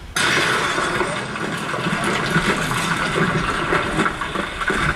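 A steady rushing, water-like noise, like pouring or gushing water, that starts suddenly and cuts off abruptly near the end.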